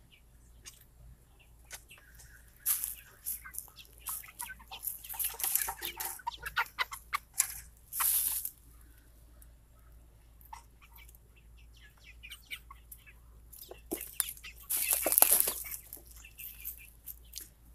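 A flock of seven-week-old Red Ranger broiler chickens clucking, with scattered short calls and several louder rustling, flapping bursts, the loudest about fifteen seconds in.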